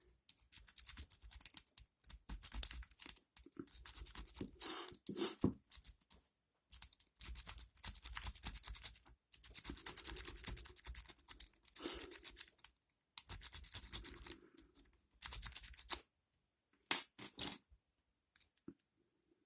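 A metal lock pick rake being run in and out of the keyway of an ASSA Ruko 2 padlock: rapid scraping and clicking over the pins in repeated strokes a second or two long, stopping after about sixteen seconds with two short strokes shortly after.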